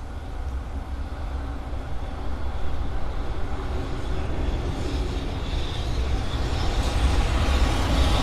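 A train approaching on the rails, its rumble growing steadily louder, with more hiss and rattle creeping in over the last few seconds.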